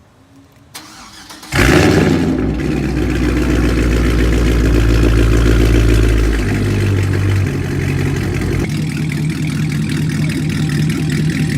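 Supercharged 6.2-litre LSA V8 of a second-generation Cadillac CTS-V, with an aftermarket exhaust, firing up about a second and a half in. It runs at a fast idle that steps down twice and settles to a lower, steady idle.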